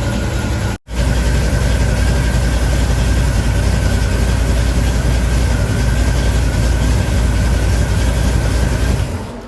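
The 1977 Chevrolet Camaro's engine idles steadily with a thin, steady high whine over its low rumble. It runs smooth, with no lifter tick, now that a collapsed lifter has been replaced. The sound cuts out briefly just under a second in and dies away just before the end.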